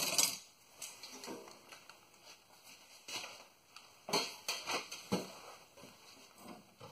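Scattered light clicks and taps of hand tools and a bolt being handled while it is fitted back in, with a quick cluster of clicks about four to five seconds in.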